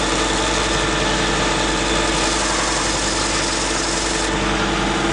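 Robert Sorby Pro Edge belt sharpener's motor running steadily while the bevel of a steel skew chisel is ground against the moving abrasive belt, touching up the edge. The grinding hiss grows stronger midway and eases shortly before the end.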